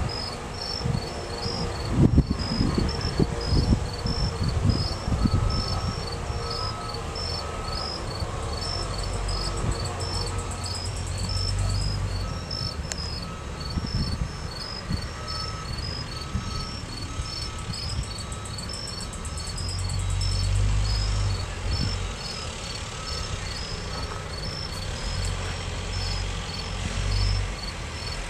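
Night insects chirping in a steady, evenly pulsed rhythm. Low rumbles and knocks underneath, with the loudest sharp knock about two seconds in.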